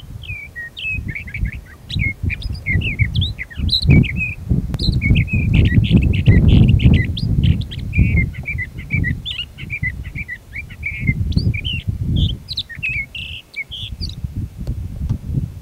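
Sage thrasher singing a long, rapid, run-on warbling song of quick varied notes without a break, stopping near the end, over a loud, gusty low rumble.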